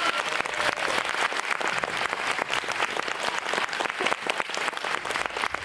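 Audience applauding, many hands clapping densely and steadily.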